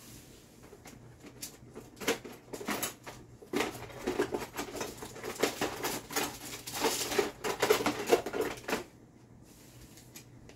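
Kitchen utensils clattering and scraping: a quick, uneven run of clicks and knocks starting about two seconds in, busiest in the middle, and stopping about two seconds before the end.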